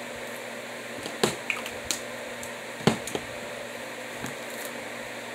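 A few light clicks and taps of small objects being handled and set down, the sharpest just over a second in and about three seconds in, over a steady room hiss.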